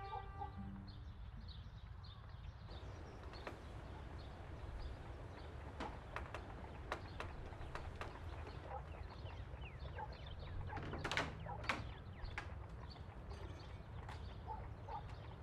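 Faint rural ambience with small birds chirping and scattered light clicks and creaks. About eleven seconds in come two louder sharp knocks as heavy wooden double doors are unlatched and swung open.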